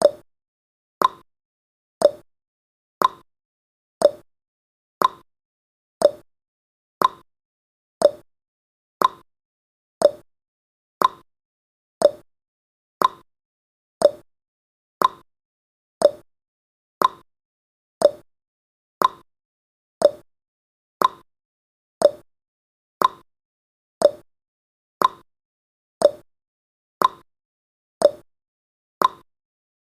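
Countdown timer's clock-tick sound effect, one short tick every second with silence between, alternating a higher 'tick' and a lower 'tock'.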